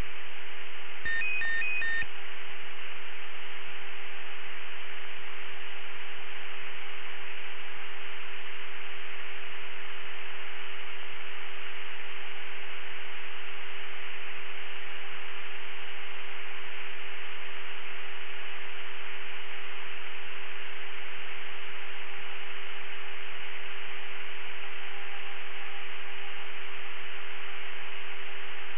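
Steady hiss of an open radio channel, cut off sharply at the high end, with a constant low hum tone running through it. A few short beeps come about a second in.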